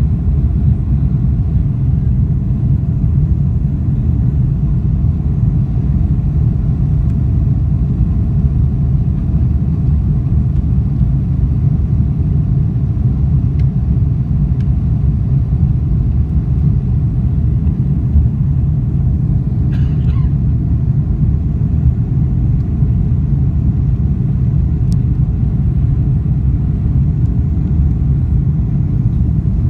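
Steady low rumble of a Boeing 747-400's four Pratt & Whitney PW4056 turbofans and the rushing airflow, heard from inside the cabin behind the wing during the climb after takeoff.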